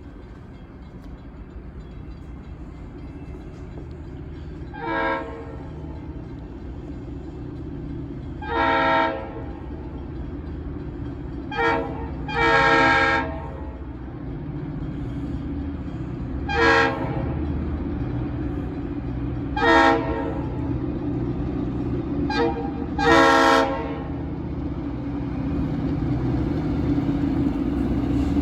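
Diesel freight locomotive approaching with its engine rumble growing steadily louder, sounding its multi-note horn in about eight short and long blasts, the loudest near the end.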